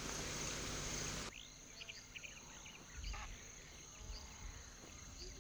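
Savanna field ambience. A steady high insect trill runs throughout. A broad rush of wind noise stops abruptly about a second in, leaving quieter air with faint scattered bird chirps.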